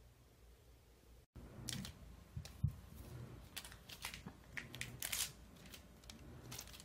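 An orange-and-white cat squirming on its back on a wooden floor, its claws and fur making faint, irregular clicks and scuffs against the boards. The first second or so is near silence.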